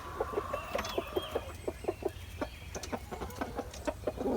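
Chicken hens clucking, a steady run of short, soft clucks, several a second, with a few higher chirps mixed in.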